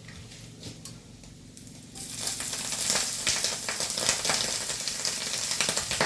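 Minced mushrooms frying in hot oil in a pan. A loud sizzle with dense crackling starts suddenly about two seconds in and keeps going.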